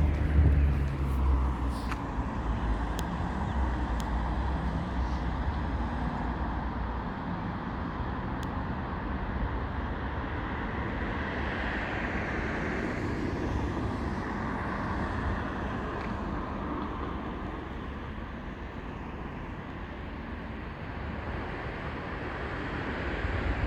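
Road traffic: a vehicle passes with a heavy low rumble in the first several seconds, then a second vehicle's tyre and engine noise swells and fades around the middle.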